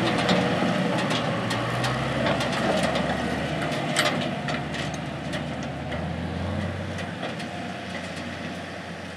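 IH Farmall 806 tractor pulling a loaded silage wagon away over gravel, its engine running and fading as it drives off. Wagon rattles and knocks recur, with one sharp clank about four seconds in.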